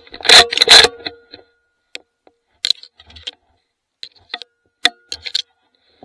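Metal-on-metal clacks and clicks from a hunting rifle being handled right after a shot. Two or three very loud, sharp clacks come in the first second, then about a dozen lighter clicks and rattles are spread through the rest.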